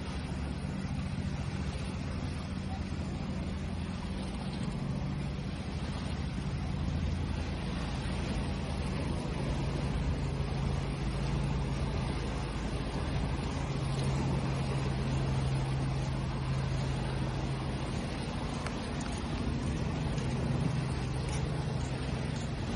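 Waves washing steadily, the noise slowly swelling and easing every few seconds, over a steady low hum.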